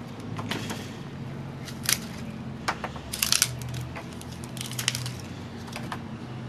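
Hand pruners snipping through dry, dead Epiphyllum branches: several sharp snips spaced a second or so apart, with a quick cluster of cuts about halfway through.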